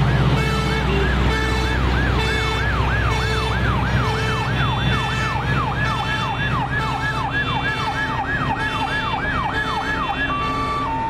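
Fire truck sirens: one siren sweeps rapidly downward in pitch over and over, about two to three sweeps a second, and a two-tone hi-lo siren takes over near the end, over the low rumble of the trucks' engines.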